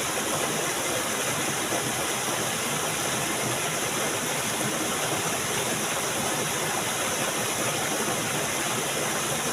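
Steady rush of flowing stream water, an even, unbroken hiss.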